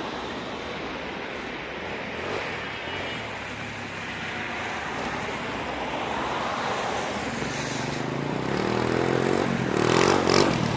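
Steady background hiss of road traffic, then from about eight seconds in a small motorcycle's engine approaches and grows louder, its pitch rising and falling as it revs.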